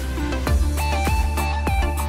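Background music with a steady beat: deep drum hits about every half second under sustained synth-like tones and a simple melody.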